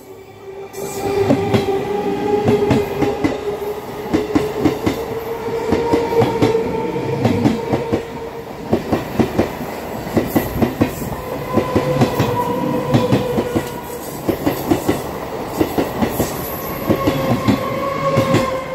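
Electric multiple unit commuter train passing close by, its wheels clacking over rail joints in repeated clusters of sharp clicks, over a steady tone.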